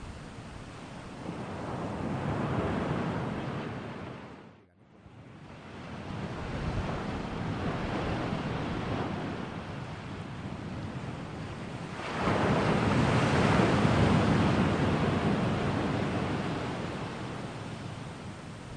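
Rushing noise like surf, swelling and fading in slow waves. It drops out briefly about five seconds in, and its loudest swell comes in suddenly about twelve seconds in.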